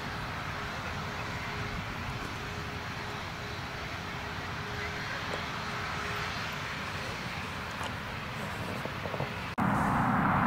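Steady distant engine rumble and hiss from the airfield, then, after an abrupt cut near the end, the louder engine noise of a twin-engined jet airliner on landing approach.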